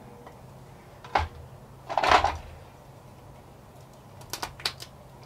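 Small paint bottles handled on a workbench: a light knock about a second in, a short, louder rattle near two seconds, then a few quick clicks near the end.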